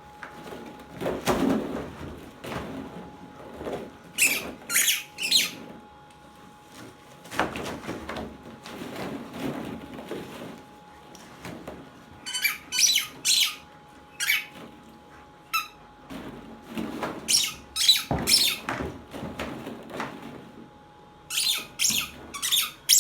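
A German shepherd chomping a squeaky dog ball, giving clusters of sharp, high squeaks, several in quick succession, with pauses between the clusters. Softer rustling and mouthing sounds fill the gaps.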